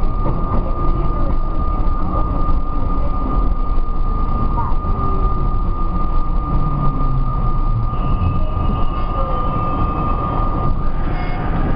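Budd-built R32 subway car running along the track past a station and into the tunnel: a steady rumble of wheels on rail with a constant high whine.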